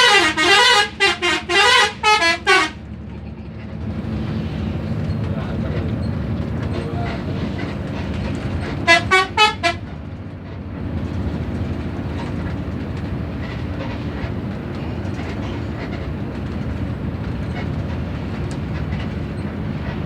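Indonesian bus 'telolet' musical horn on an Agam Tungga Jaya bus, playing a quick warbling multi-tone tune for about two and a half seconds, then four short rising toots about nine seconds in. Between and after the horn, the bus's engine and road noise rumble steadily, heard from on board.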